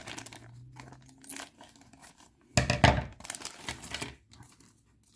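Plastic bags of miniatures crinkling and rustling as they are handled and sorted, with a louder burst of crackling a little past halfway.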